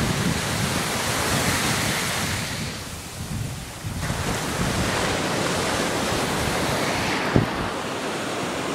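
Ocean surf washing onto a sandy beach, swelling and falling back, with wind buffeting the microphone. A short thump about seven seconds in.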